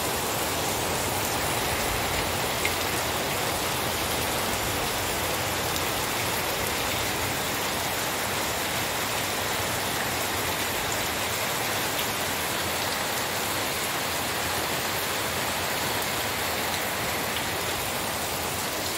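Steady hiss of heavy rain falling.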